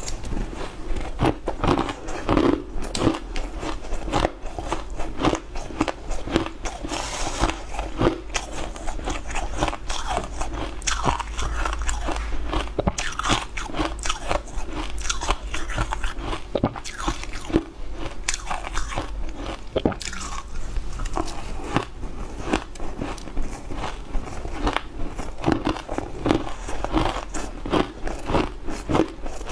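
Close-up crunching and chewing of shaved ice, with many small crackling cracks in quick succession.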